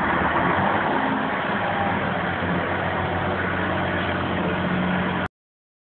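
Loud steady vehicle noise, cutting off abruptly about five seconds in.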